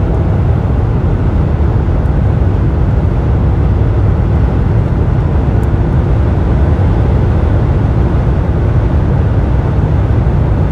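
BMW G30 520i heard from inside the cabin at about 180–200 km/h: a steady low roar of road, wind and engine noise.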